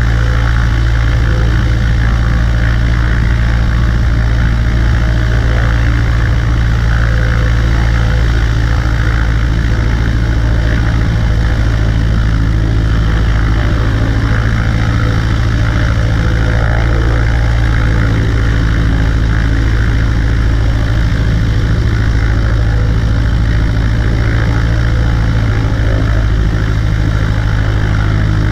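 Cessna 140A light aircraft's piston engine and propeller running at a steady, unchanging drone.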